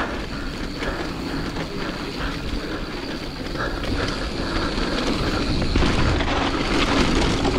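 Wind rumbling on the microphone over a Giant Trance 27.5 mountain bike rolling fast down a dirt trail, with many small knocks and rattles from the bike over bumps. It gets a little louder toward the end.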